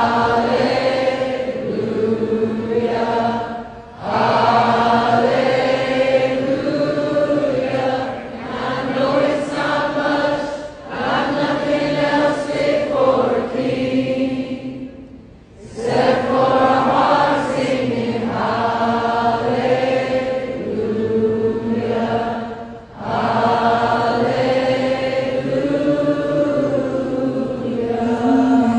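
Voices chanting together in long held tones that shift slowly in pitch, pausing briefly every few seconds as if for breath.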